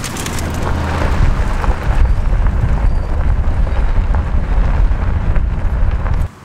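Wind buffeting the camera microphone held out of a moving pickup truck's window, with the truck's road noise beneath it: a loud, rough low rumble that cuts off suddenly near the end.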